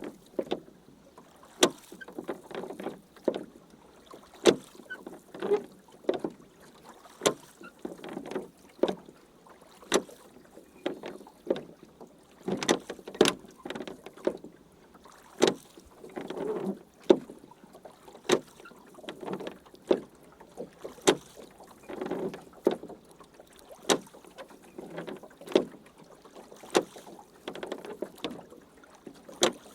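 Rowing boat being rowed: oar strokes in a steady rhythm, about one every one and a half seconds, each with a splash of water and a sharp knock.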